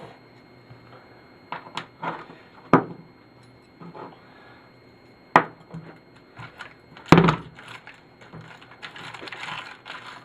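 Hammer striking a TV's deflection yoke to break off its ferrite core: a handful of sharp blows a second or more apart, the loudest about seven seconds in. Near the end, a jingling clatter of loose pieces.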